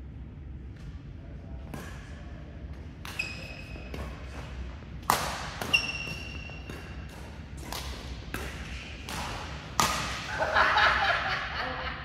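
A badminton rally: about ten sharp cracks of rackets striking the shuttlecock in quick succession, with short high squeaks of shoes on the court floor. Players' voices break out near the end, as the rally stops.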